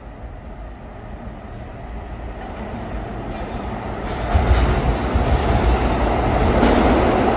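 New York City subway train approaching through the tunnel into the station: the rumble of steel wheels on the rails grows steadily louder, getting heavier about four seconds in.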